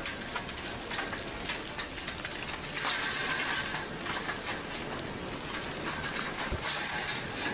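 Advancing a'a lava flow: chunks of cooled crust cracking and tumbling with rapid glassy clinks and crackles. A louder rush of hiss comes about three seconds in and lasts about a second.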